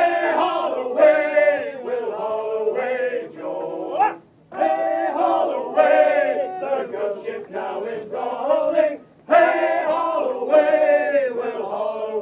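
A group of mostly male voices singing a sea shanty in unison, unaccompanied. The phrases are held and loud, with two short breaks for breath, about four and nine seconds in.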